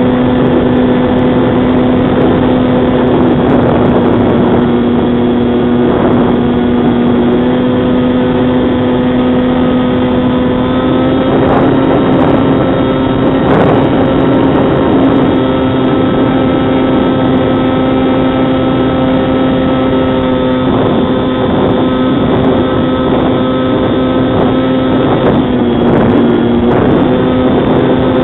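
Brushless electric motor and pusher propeller of a Bixler 2 RC foam plane droning steadily in flight, heard close up from on board. The pitch holds nearly constant, dipping slightly near the end.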